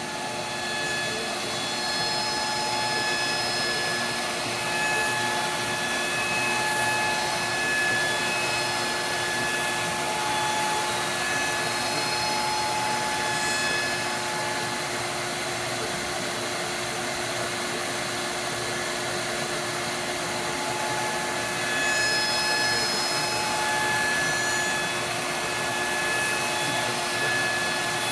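CNC router spindle driving a large carbide-insert surfacing bit as it mills across an aluminum cylinder head, with the dust collection running. It is a steady rush with a constant low hum and higher whining tones that come and go.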